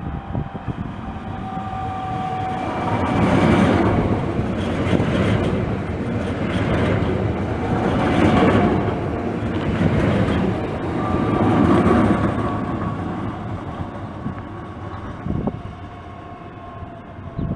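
DB class 442 Talent 2 electric multiple unit passing close by. The rumble of its wheels on the rails rises and falls in several swells as the cars go past, with steady whining tones from the train running through it, then fades.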